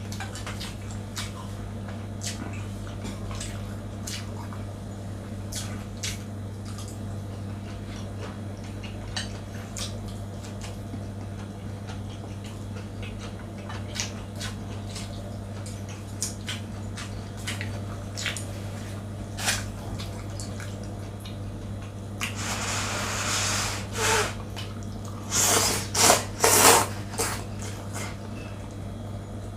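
Eating sounds from a bowl of Korean spicy instant noodles: small clicks of chopsticks or a spoon against the bowl and chewing throughout, then a few louder slurps of noodles near the end. A steady low hum runs underneath.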